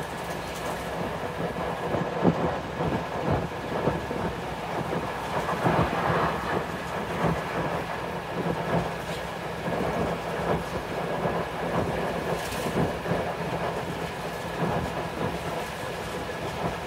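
Scania DC9 9.0-litre five-cylinder diesel of a Scania N94UB Omnicity bus running steadily under way, heard from inside the saloon. Wind buffets in through the open windows over the engine.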